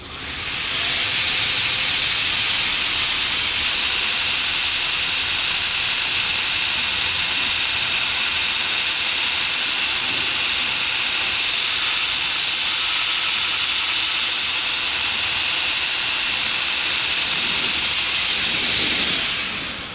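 Homemade 2x72 belt grinder running with nothing against the belt, its three-phase motor on a VFD: a loud, steady hiss of the abrasive belt running over its wheels. It spins up within the first second and winds down near the end.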